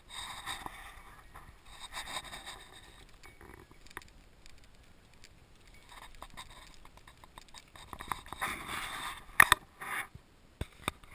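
Handling noise from a handheld camera carried on foot: scraping and rustling in patches, with a few sharp clicks near the end.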